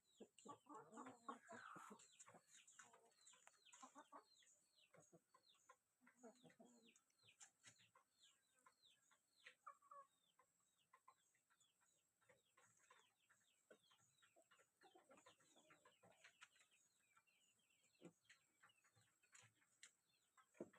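Chickens clucking faintly, with a continuous run of short, falling, high chirps and a few fuller clucks between them.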